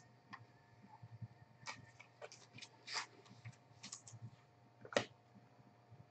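Faint, irregular clicks and rustles of hands handling trading cards and their packaging, with one sharper click about five seconds in, over a faint low hum.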